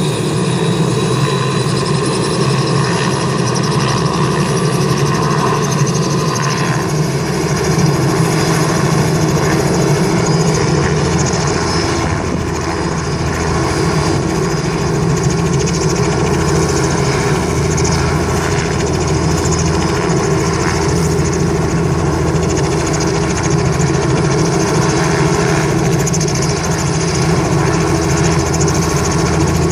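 Robinson R44 helicopter running on the ground with its rotor turning, its six-cylinder Lycoming piston engine holding a steady, low run before takeoff.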